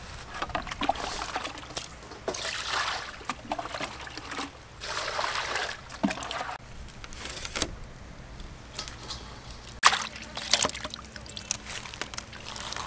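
Water poured from a plastic bucket into a steel basin in a few long pours, then several sharp knocks and splashes, the loudest near the end, as raw skinned quail are put into the water.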